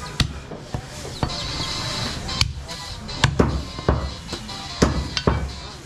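Heavy cleaver chopping goat meat on a wooden log chopping block: a run of irregular sharp chops with a dull thud, roughly two a second.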